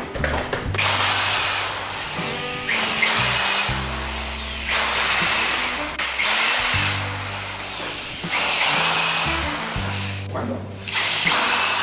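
Corded electric drill boring holes into wooden stair treads in about six bursts of a second or two each, over background music with a steady bass line.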